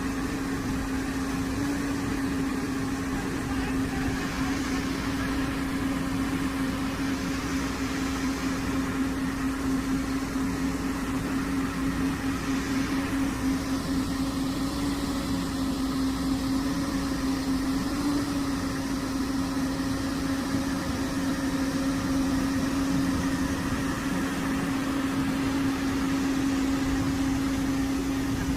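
Heavy machinery running steadily: a constant engine drone with an even hum.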